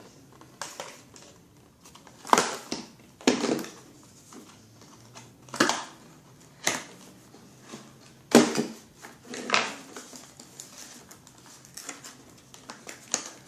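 Plastic and cardboard packaging of a Nerf blaster being worked loose by hand: irregular sharp clacks and crinkles as the ties holding the blaster are pulled at, about eight louder knocks spread through.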